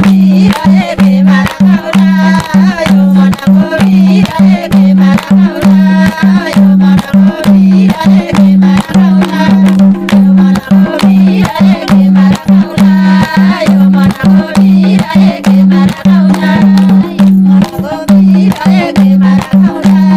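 Group of women singing a Nepali Teej folk song, with hand-clapping and a hand drum keeping a steady, quick beat.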